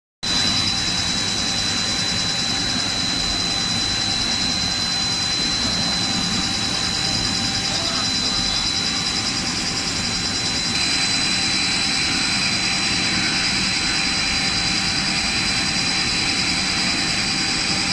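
Snack pellet extruder production line running: a steady mechanical whir of motors and drives with a constant high whine. The sound shifts slightly about eleven seconds in.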